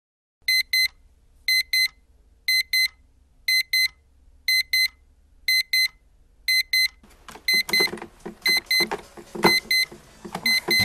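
Westclox digital alarm clock beeping in pairs, about one pair a second. About seven seconds in, rustling and thumps join it as a hand reaches over. The beeping ends near the end as the hand comes down on the clock.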